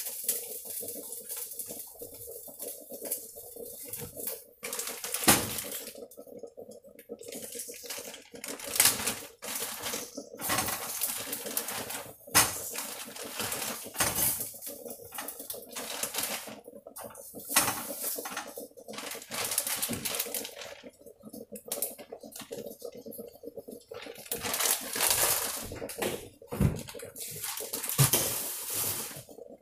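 Kitchen handling noises: irregular rustling, clattering and clinks as a plastic food bag and a pot are handled at the stove, over a steady faint hum.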